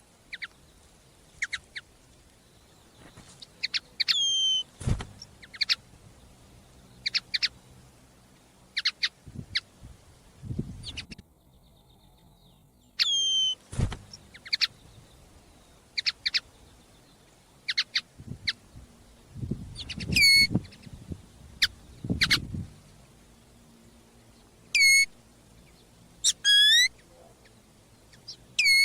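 Common linnet calling: short clipped notes repeated every second or two, among them several longer calls that sweep down in pitch. A few low thuds come in between the calls.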